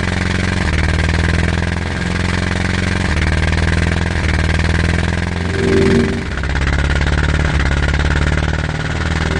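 Vehicle engine sound effect running steadily, its pitch stepping up and down every second or two. A short higher-pitched sound comes about six seconds in.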